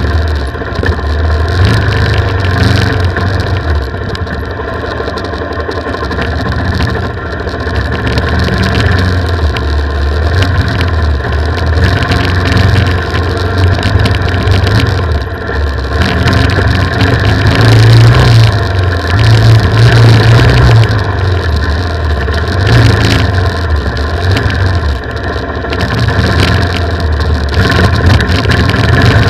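Off-road motorcycle engine pulling along a dirt trail, its note rising and falling with the throttle every few seconds, heard from an action camera mounted on the bike along with rough wind and trail noise.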